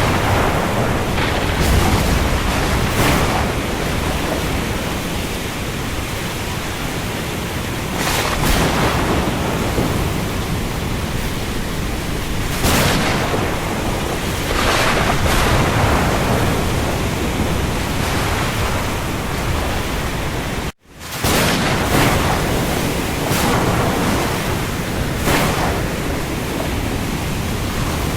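Heavy rain falling at sea: a steady, dense hiss with waves swelling and breaking every few seconds. The sound cuts out for an instant about 21 seconds in, then resumes.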